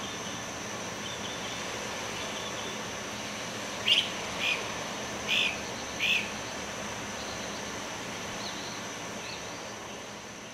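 Birds chirping over a steady hiss and a thin, high steady whine. Four louder chirps come about a second apart from about four seconds in, with fainter chirps around them, and the sound begins to fade near the end.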